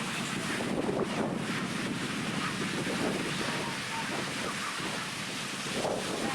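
Ocean surf washing onto a sandy beach, a steady rush of waves, with wind buffeting the microphone.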